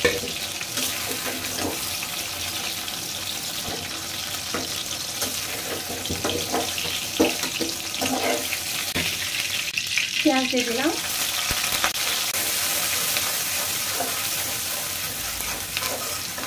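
Hot oil sizzling steadily in a pot as chunks of eggplant, potato and jackfruit seed deep-fry, with light clinks of a metal slotted spoon and spatula working through them. A brief wavering pitched sound comes about ten seconds in, and the sizzle grows stronger from about twelve seconds in.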